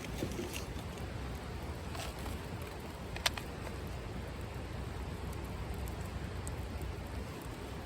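Wood fire crackling in a wood-burning grill, with scattered small clicks and one sharp pop about three seconds in, over a steady low rumble.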